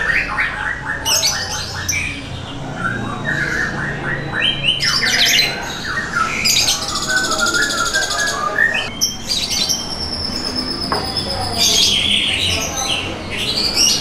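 Many caged songbirds, among them lovebirds, calling and singing over one another in shrill squawks, chatter, quick trills and whistles. A long, fast, buzzy trill comes just past the middle, followed by a held high whistle.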